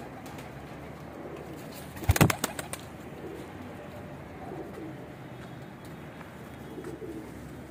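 Domestic pigeons cooing softly in a loft, with a brief loud clatter about two seconds in.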